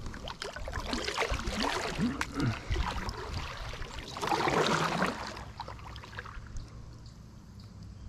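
Water splashing and trickling beside a kayak hull as it is paddled round, loudest about four to five seconds in, with a few short creaks in the first three seconds, then settling to quieter lapping.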